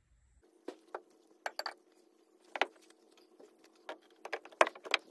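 Irregular metallic clinks and taps of hand tools and bolts being handled while a wheel bearing hub is fitted into a truck's steering knuckle, over a faint steady hum. The loudest clink comes near the end.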